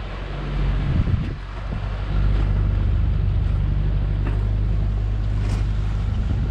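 Small fishing boat's engine running steadily, a low rumble that grows louder about two seconds in and then holds even.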